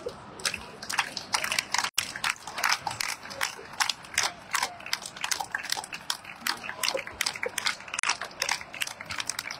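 Spectators clapping: many sharp, irregular hand claps, starting about half a second in.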